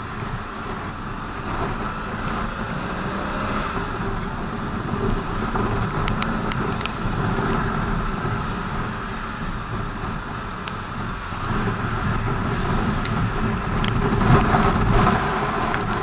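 BMW R 1200 GS boxer-twin engine running under way, mixed with wind and road noise, a little louder near the end, with a few faint clicks.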